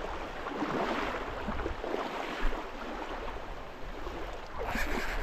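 Shallow seawater sloshing and lapping, with small splashes.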